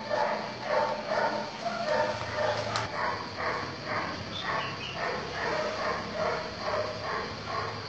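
A black dog barking over and over in an even rhythm, about two to three barks a second.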